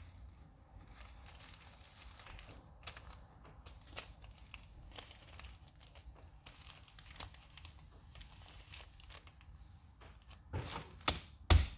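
Slime with foam beads being kneaded and squished by hand, making faint sticky clicks and crackles, with a few louder knocks near the end.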